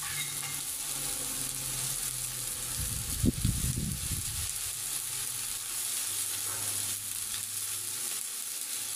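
Meat sizzling steadily on a hot sac, a domed iron griddle, with one brief low thud about three seconds in.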